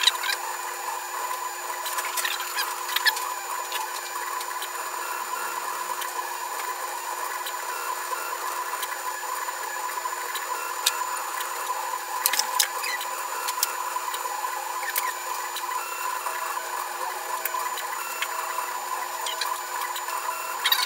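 UP Plus 2 3D printer printing: its stepper motors give steady whining tones with quick squeaky chirps as the print head moves, and short clicks now and then.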